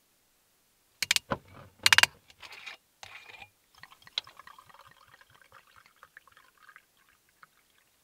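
A few loud, sharp clicks and rattles, then white wine pouring from a glass bottle into a mug for about four seconds.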